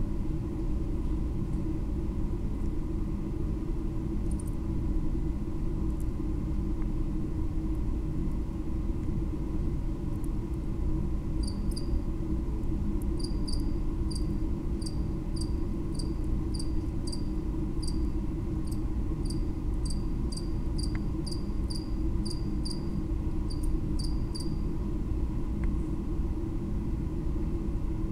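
A cricket chirping about two chirps a second for roughly thirteen seconds, starting about a third of the way in, over a steady low hum.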